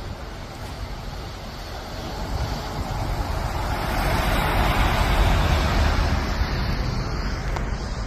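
Wind rumbling on the microphone mixed with road traffic noise along a snowy highway. The noise swells near the middle and eases off toward the end.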